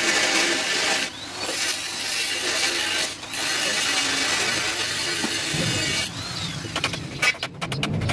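Electric angle grinder cutting through steel bar, a loud steady grinding hiss with two brief dips. It stops about six seconds in, followed by a series of sharp knocks and clatters.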